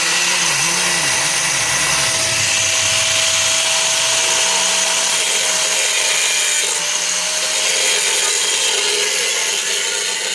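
A handheld power tool running steadily on metal, with a continuous hiss and a high whine.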